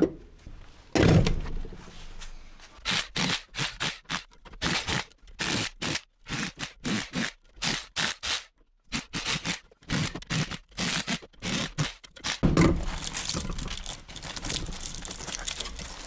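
Electric rotary hammer in hammer-only mode driving a chisel bit into an electric motor's aluminum windings. It runs in many short bursts, then steadily for the last few seconds, with a loud knock about a second in.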